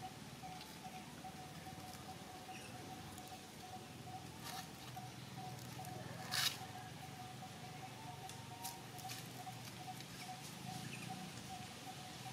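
Macaques moving on dry leaf litter make scattered light rustles and taps, with one sharper crackle about six seconds in. A faint steady tone runs underneath.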